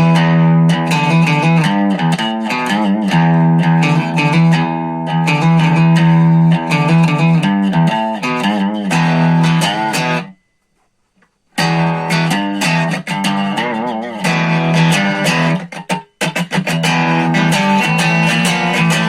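SX Vintage Series Telecaster electric guitar played through a small Marshall MG10 practice amp: picked notes and chords. The playing stops for about a second just after the middle and dips briefly again a few seconds later.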